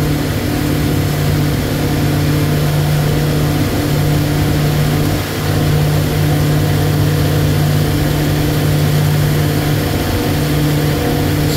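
A boat's engine running steadily under way, a constant low drone over a steady hiss.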